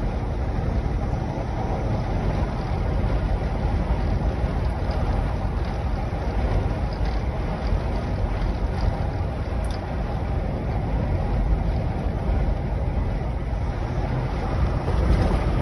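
Steady road noise heard from inside a vehicle's cabin at highway speed: a constant rumble of tyres and wind.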